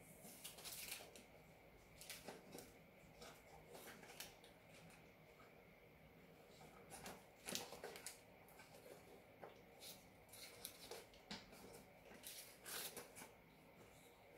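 Near silence broken by faint, scattered light clicks and rustles of handling, coming in a few short clusters.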